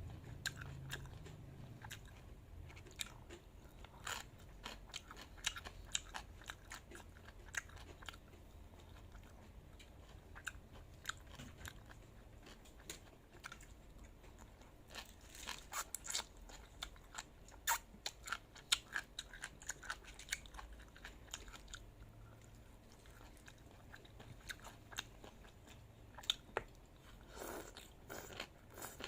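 A person chewing and biting crunchy food, close to the microphone: irregular crisp crunches and mouth clicks, thickest around the middle and again near the end.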